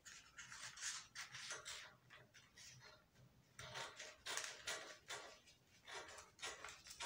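Scissors cutting paper: a run of short, quiet snips that pauses briefly near the middle, then picks up again.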